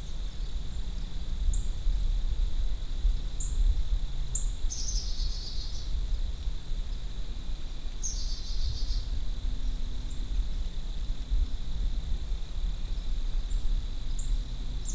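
Small woodland birds calling: a few short, high chirps and three quick trills, over a steady low rumble.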